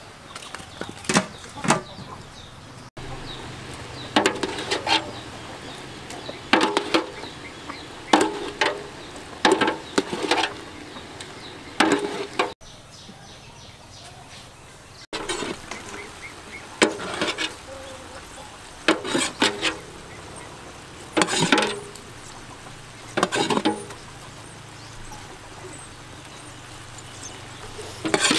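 Metal pot lid and ladle clinking and knocking against a metal cooking pot, in short clusters every second or two.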